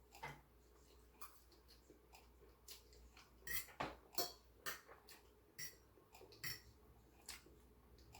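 Faint, scattered clicks and light taps of someone eating, a little louder and closer together around the middle.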